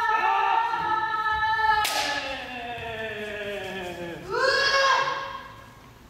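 Kendo kiai: overlapping long drawn-out yells from several fencers, sliding down in pitch, with the sharp crack of a bamboo shinai strike about two seconds in. A fresh shout rises a little after four seconds and fades near the end.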